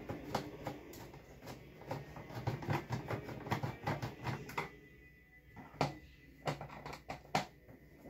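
Irregular clicks and knocks of hard plastic being handled as a plastic box fan's housing is unscrewed and taken apart.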